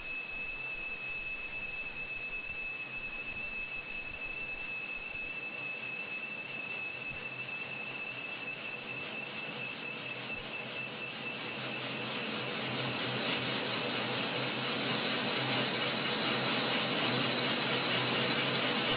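SMTCL CAK CNC lathe turning a titanium-aluminium workpiece: a steady high-pitched whine, then a louder, rougher cutting noise that builds from about two-thirds of the way in.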